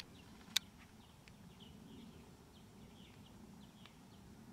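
Faint outdoor ambience with scattered soft, short bird chirps and a low steady rumble, broken by one sharp click about half a second in.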